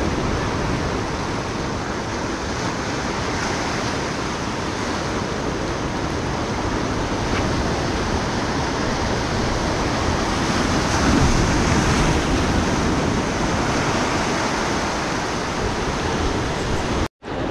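Ocean surf breaking and washing over shoreline rocks, a steady rushing wash that swells slightly about two-thirds of the way through. The sound cuts out for a split second near the end.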